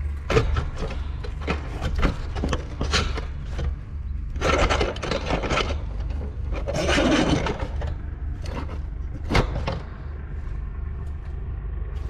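Handling noise from work inside the condenser: a run of knocks, clicks and scraping, with two longer scraping spells about four and seven seconds in, over a steady low rumble.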